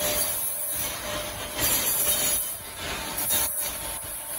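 Gantry of a large CNC router with a 12-metre bed travelling along its rails, a continuous mechanical running noise that swells and dips, with a faint steady whine.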